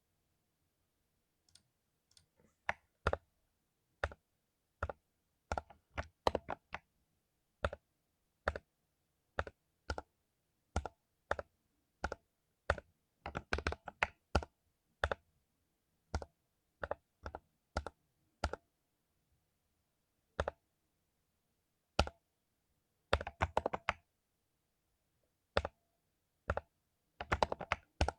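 Typing on a mechanical keyboard with lubed Cherry MX Silver linear switches: separate keystrokes at an uneven pace, broken by a few quick flurries of keys.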